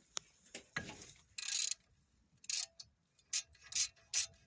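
A 3/8-inch drive ratchet working on brake caliper bolts: several short bursts of ratchet clicking a fraction of a second apart, with a click near the start.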